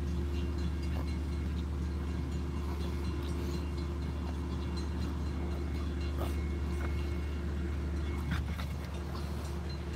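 Diesel locomotive of a short double-decker commuter train, its engine running with a steady low drone. A faint knock comes about eight seconds in.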